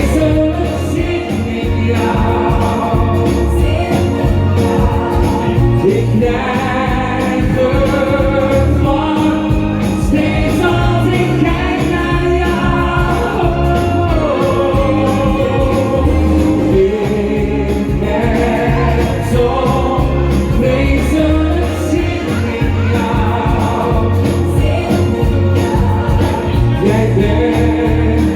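Dutch-language pop song: singing over music with a steady beat, with choir-like backing vocals.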